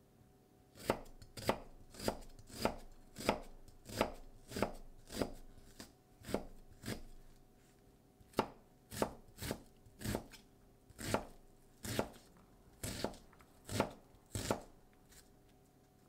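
Global chef's knife dicing half an onion on a cutting board: crisp, regular chopping strokes, about two a second, with a short pause around the middle.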